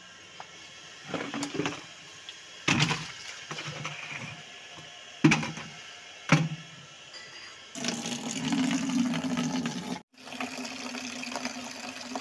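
A few knocks and clunks of handling, then about two-thirds of the way in a tap starts running, water pouring steadily into a plastic bucket; the pouring drops out for a moment and resumes.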